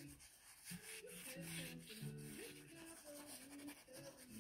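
Faint scrubbing of a piece of red plant matter rubbed quickly back and forth on sketchbook paper, smearing its pigment into the page. Soft background music plays throughout.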